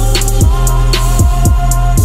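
Electronic hip-hop instrumental: deep kick drums that drop in pitch, a snare and ticking hi-hats over held synth tones.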